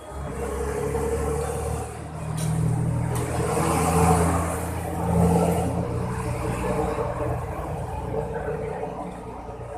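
A motor vehicle's engine going past close by. It starts suddenly, is loudest about four to five seconds in, and fades away over the last few seconds.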